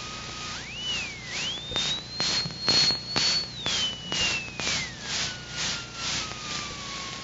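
Police cruiser siren wailing: one long sweep that climbs steeply in pitch, holds high, then falls slowly. A regular pulsing noise repeats about two or three times a second through the middle of the sweep.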